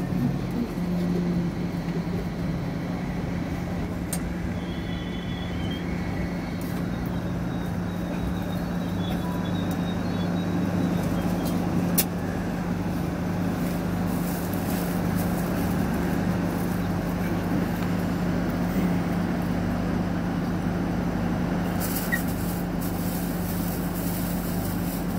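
Hong Kong Light Rail car heard from inside as it travels: a steady low motor hum over rumbling wheel-and-rail noise, with one sharp click about halfway through.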